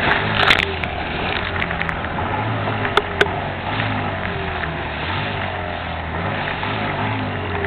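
Motorboat engine running steadily alongside under a loud rush of wind and breaking water, with two sharp knocks about three seconds in.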